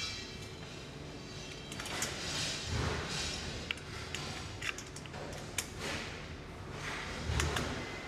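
Knocks, clicks and dull thumps from the parts of a table storage trolley being handled and fitted together, irregularly spaced, over a steady low hum or faint background music.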